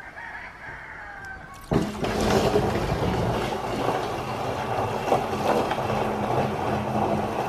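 Maple sap poured from a plastic bucket through a stainless steel funnel into a plastic drum, a steady splashing pour that starts suddenly about two seconds in.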